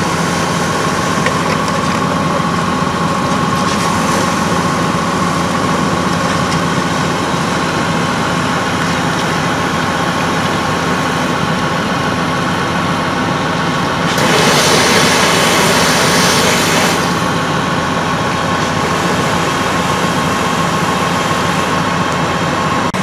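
Fire engine's engine running steadily to drive its pump for the hose line, with a steady whine over the engine sound. Around two-thirds of the way through, a louder hissing rush lasts about three seconds.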